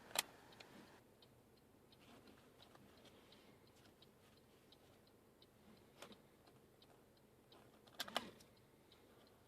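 Near silence, broken by a sharp click right at the start, another about six seconds in, and a short cluster of clicks near the end, with faint ticking in between.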